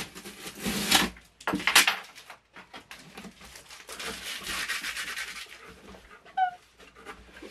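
Packing tape torn off a cardboard box, with two loud ripping pulls in the first two seconds, followed by a longer stretch of cardboard rubbing and scraping as the box flaps are worked open.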